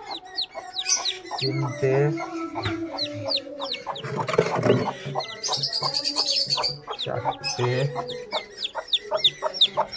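Newly hatched chicks peeping over and over in short, high, falling cheeps, with the mother hen clucking low beneath them. A short burst of noise comes about four seconds in.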